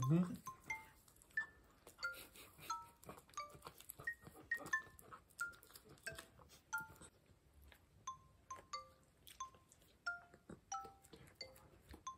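Gentle chime-like background music, single notes at changing pitches that each ring and fade quickly, over the faint clicks and smacks of a small dog chewing and licking cake.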